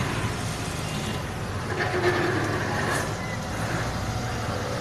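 A motor vehicle engine running steadily nearby, a continuous low rumble.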